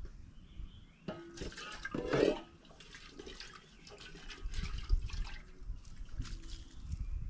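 Water splashing and pouring from a metal cooking pot as soaked beans are drained and rinsed, with a short metallic knock and ring of the pot about a second in. The pour spatters onto grass near the end.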